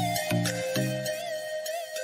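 Background music: a sustained melody over a pulsing bass line, the bass dropping out about a second in.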